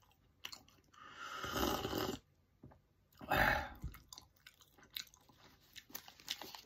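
A man slurping coffee from a cup, two long noisy slurps about a second and about three seconds in, with faint chewing clicks after.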